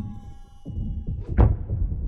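Low, pulsing dramatic score with sustained tones that fade out, and a single heavy thud about one and a half seconds in.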